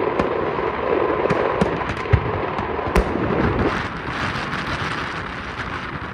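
Aerial fireworks bursting: a few heavy thumps of shells going off over a dense, continuous crackle of popping shells, with the crackle growing higher and hissier in the second half.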